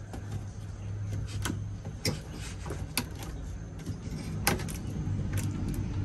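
Hand handling the dropped motor pulley and melted plastic belt cover of a Whirlpool top-load washer: several sharp clicks and knocks over a steady low hum.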